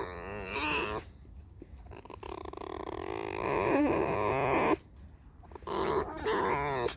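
Pet red fox making creaky, wavering squeals and whines while being petted: a short call, then a long drawn-out one, then another near the end. These are her complaining vocalizations, which sound as if she were being hurt.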